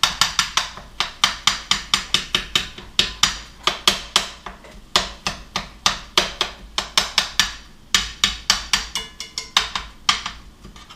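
A metal utensil clacking repeatedly against a frying pan while ground beef is chopped up as it browns. Sharp knocks come about four or five a second in runs, with short pauses.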